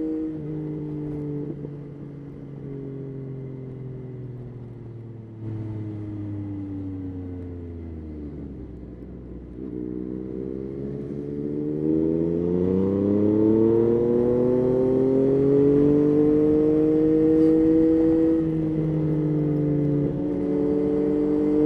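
Yamaha Tracer 9's three-cylinder engine on the move: its revs fall away for about nine seconds as the bike slows, then climb again as it accelerates, the engine getting louder about halfway through.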